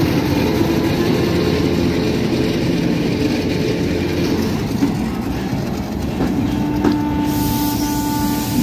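Freight train of rail tank wagons rolling past close by, wheels clattering over the rail joints. A steady whine, typical of wheel squeal, comes in near the end.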